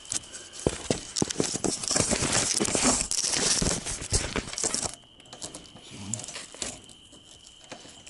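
Plastic zip ties being handled and pulled tight around radiant-heat tubing and rebar: a dense run of crackling, zipping clicks for about five seconds, then much quieter.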